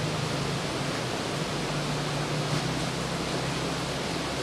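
Steady background hiss with a low hum underneath, even and unchanging.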